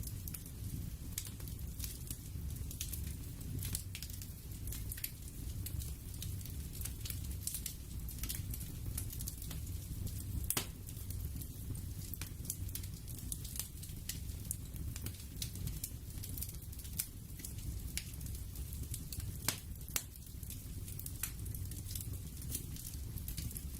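Crackling fire ambience: irregular sharp pops and snaps over a steady low rumble.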